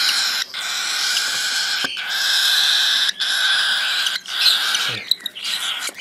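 Cockatiel chicks begging to be fed, a steady hoarse calling broken by short gaps about once a second.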